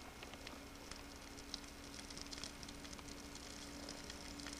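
Faint, scattered crackles from a smouldering tinder bundle of dry twigs catching into flame, growing busier about two seconds in.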